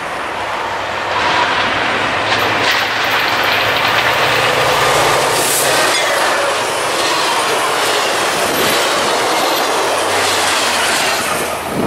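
Metra diesel-hauled passenger train passing close by at speed: the lead locomotive's engine drone, then the cars' wheels clicking over rail joints. A second locomotive's engine hum returns near the end as it passes.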